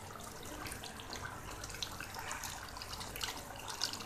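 Thick beef curry bubbling in a wok as it simmers, with many small irregular pops and a spatula stirring through the gravy.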